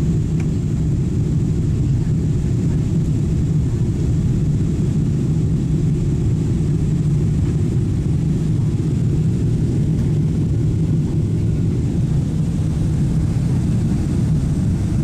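Steady low rumble of a Boeing 777-200's engines and the rush of air, heard from inside the passenger cabin as the airliner climbs after takeoff.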